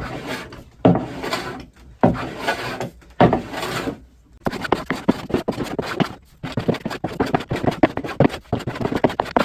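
Hand plane shaving a maple board: four long strokes about a second apart, then a quick run of short, choppy strokes.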